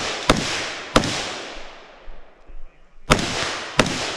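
Four gunshots in two pairs, the second pair about two seconds after the first, each shot followed by a long echo rolling away through the woods.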